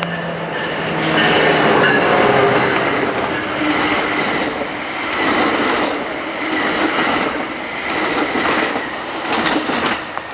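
Bombardier ALP-45DP dual-mode locomotive and bi-level commuter coaches passing close by. The locomotive's steady hum is heard in the first couple of seconds, then the coaches rumble past with wheels clacking over the rail joints.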